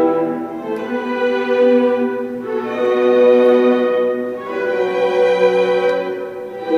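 Slow instrumental background music of sustained string-like chords, changing every two seconds or so.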